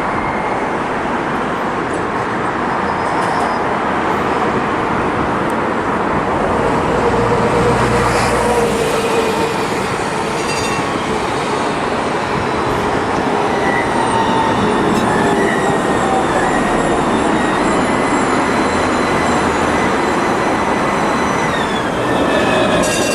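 Zhuhai tram running: a steady rolling rumble of a rail vehicle, with faint whining tones that drift in pitch.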